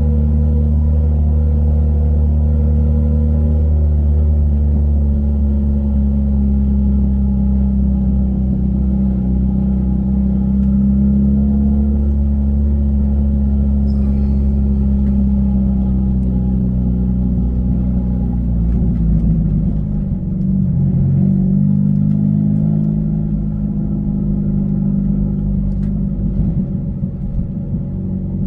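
Saturn Ion Redline's supercharged 2.0 L four-cylinder running at low revs while the car is driven slowly, a steady low engine drone whose note wavers and shifts about twenty seconds in.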